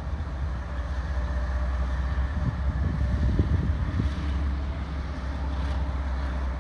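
General Electric diesel-electric locomotive running at low throttle as it creeps toward the platform: a steady low rumble with a faint steady tone above it. Wind buffets the microphone in gusts through the middle.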